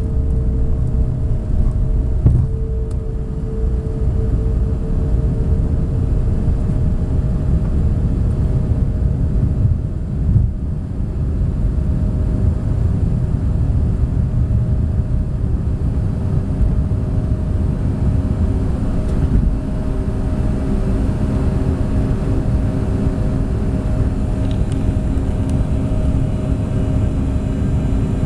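Cabin noise of a Bombardier CRJ regional jet with its rear-mounted turbofan engines running: a steady low rumble with a constant hum, heard from inside the passenger cabin. Two brief thumps come through, one about two seconds in and another about ten seconds in.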